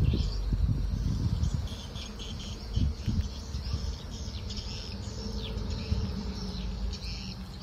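Birds chirping and insects calling in the surrounding vegetation: short high chirps repeating throughout. Beneath them runs a low rumbling noise, loudest in the first two seconds and again about three seconds in.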